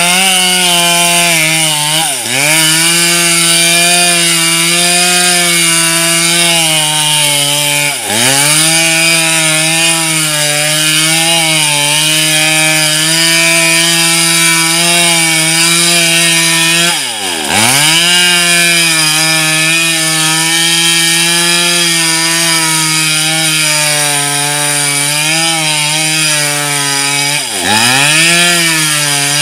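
Two-stroke chainsaw running at high speed while cutting through mango tree trunks. The engine's pitch drops sharply and climbs back up four times, about 2, 8, 17 and 28 seconds in.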